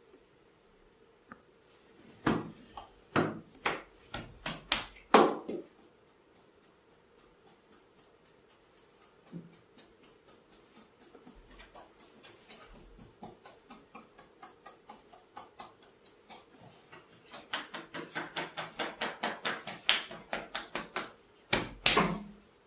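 Percussive massage strikes on a person's head and shoulders. A few hard slaps come early, then a steady run of lighter taps about three a second, which turn faster and louder near the end.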